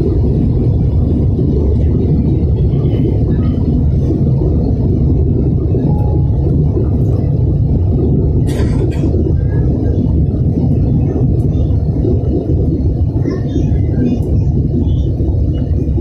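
Airliner on its take-off run and climb, heard from inside the cabin: a loud, steady rumble of engine and airflow. A brief hiss comes about halfway through, and faint voices are heard now and then.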